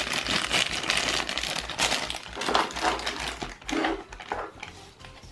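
Clear plastic bag around a coiled HDMI cable crinkling as it is handled and set down on a table, with light clicks and knocks; it grows fainter toward the end.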